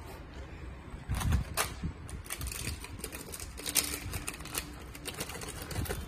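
Clear plastic bags crinkling and small plastic shoe charms clicking as they are handled, in a run of rapid, irregular clicks and rustles that starts about a second in.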